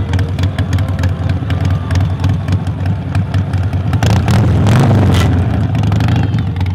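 Modified Harley-Davidson Sportster's V-twin engine running at idle, with a throttle blip about four seconds in that rises in pitch and falls back.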